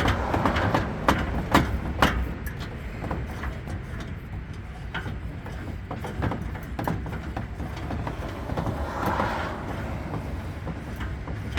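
Spare-tire hoist under a Ford F-150's bed being cranked back up with the jack's extension rod: irregular metal clicks and rattles, several sharper ones in the first two seconds, over a steady low rumble.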